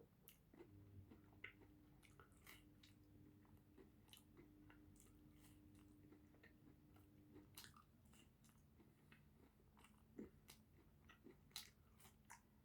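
Faint sounds of a person biting and chewing pizza, with irregular soft clicks and smacks from the mouth.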